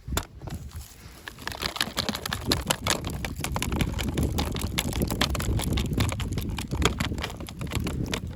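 Packaging being handled and opened, crinkling and rustling, with dense irregular crackles.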